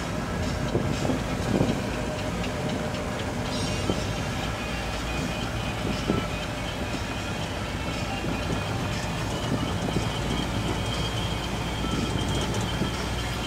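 Ride noise from on board a vehicle in motion: a steady low rumble with small rattles and knocks.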